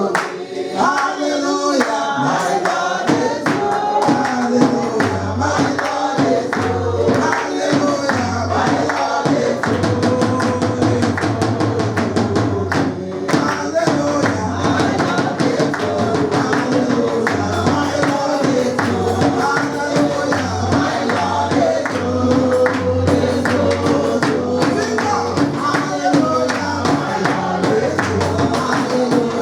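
Lively congregational praise singing, with the voices carried over a quick, steady percussion beat and a pulsing bass line.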